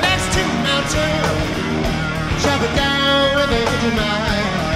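Live blues-rock music: a man singing over electric guitar and a band, the voice coming in strongest about midway.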